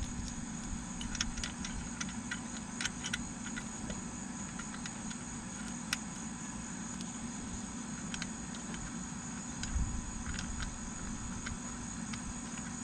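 Steady high-pitched insect trilling with a low steady hum under it, broken by scattered small metallic clicks and taps from hands fitting parts into a tractor's rear axle brake housing.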